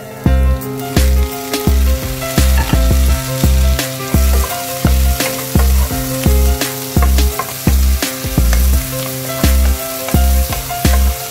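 Background music with a steady bass beat, loudest in the mix, over onions, garlic, ginger and tomatoes sizzling in a frying pan as they are stirred with a wooden spatula.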